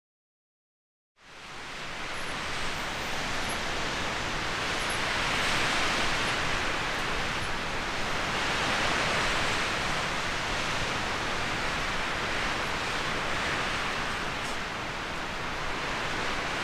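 Steady rushing noise that fades in about a second in and swells and eases every few seconds, heard from inside a tent. A few faint high chirps are heard early in the sound.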